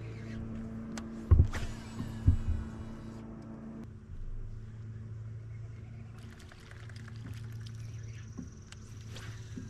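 A kayak's small electric motor hums steadily, cuts out about four seconds in and then comes back. Two heavy thumps on the hull come in the first few seconds. A fishing reel's spool whirs briefly, falling in pitch, as a cast goes out.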